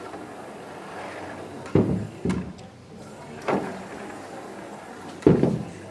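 Four dull thuds, the loudest near the end, as objects pushed off a tabletop by a small autonomous bulldozer robot land on the floor.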